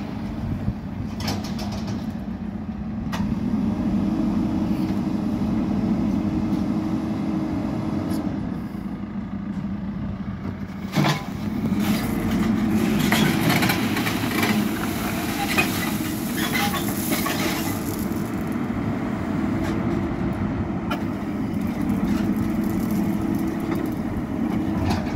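JCB backhoe loader's diesel engine running, revving up several times as the hydraulics swing and work the backhoe arm. About eleven seconds in there is a clank, followed by a few seconds of gravel scraping and rattling as the bucket works the trench.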